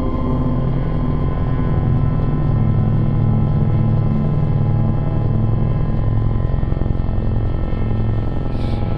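Electronic drone music: a dense, steady low rumble with many sustained tones layered above it. A brief higher shimmer comes in near the end.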